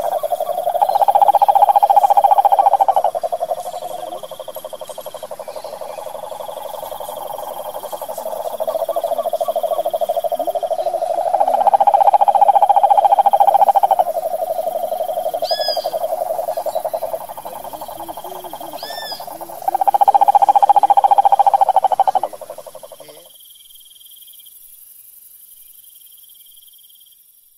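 Male Rhinella toad giving its courtship trill: a long, rapid, even trill that swells and eases in loudness in several bouts and stops about 23 seconds in. Two brief high chirps come through near the middle.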